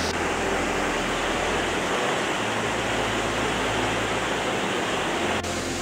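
Steady rush of falling water from a waterfall, with an abrupt change in tone near the end.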